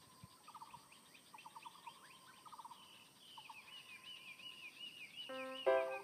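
Birds calling with short repeated trills, joined from about halfway by a quick series of higher rising chirps. Near the end, music comes in with a steady beat of chords.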